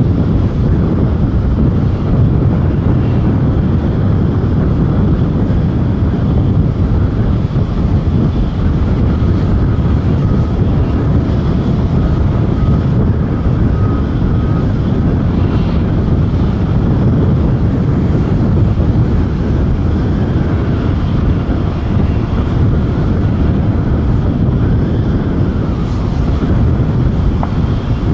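Boeing 737-800's CFM56-7B jet engines running steadily on a crosswind final approach, heard from a distance as a continuous low noise mixed with wind on the microphone. A faint whine comes through for a few seconds in the middle.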